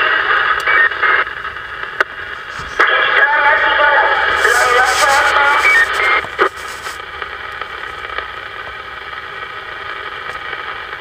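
CB radio receiving AM skip on 26.035 MHz: Spanish-language taxi dispatch voices come through thin and distorted, buried in static. The signal is strong for about the first second and again from about three seconds in, with a harsh burst of noise in the middle, then fades to a weaker steady hiss.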